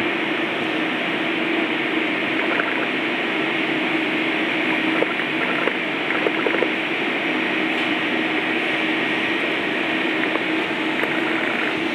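Steady hum and hiss of running kitchen ventilation and refrigeration equipment, with a few faint light taps about halfway through.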